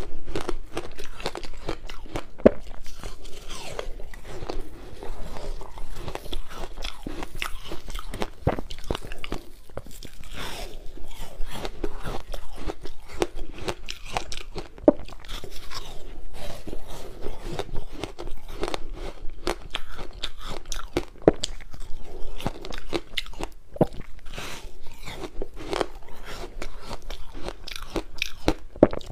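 Close-miked crunching of frozen passion-fruit ice: repeated bites snapping off pieces, then chewing, in a dense run of sharp crackles.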